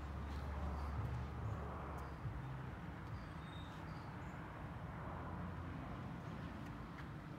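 Low, steady outdoor rumble that eases about two seconds in, with a few faint, short bird chirps.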